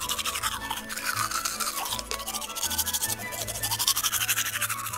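Toothbrush scrubbing quickly back and forth in rapid brushing strokes with a swishing rise and fall, over light background music.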